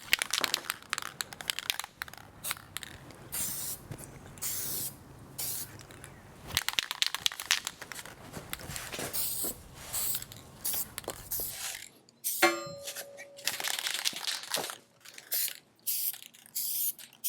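Welded steel bracket being worked in and out of its mounting receivers: irregular metal scraping, crunching and clicking, with a brief squeak about twelve seconds in.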